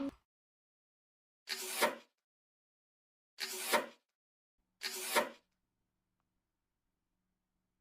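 Three short rubbing or scraping sounds, each about half a second long and ending in a small sharp click, spread over about four seconds.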